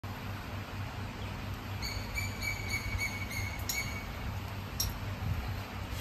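Steady rainfall with a low hum underneath. About two seconds in, a bird gives a quick run of repeated high notes, about three or four a second, for nearly two seconds, and there are two sharp clicks soon after.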